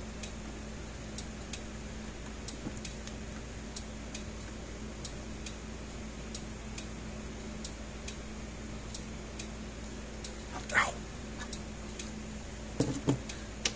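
Gallagher S17 solar fence energizer ticking with each output pulse, a pair of light clicks about every 1.3 seconds over a steady low hum. A short squeak comes about ten seconds in and a couple of knocks near the end.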